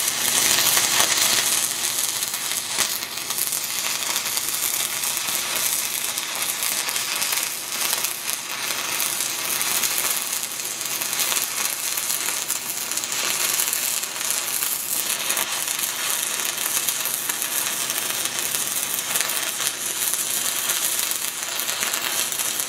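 6010 stick electrode arc welding a downhill hot pass on steel pipe: a steady, dense crackle and sizzle of the arc with many fine pops.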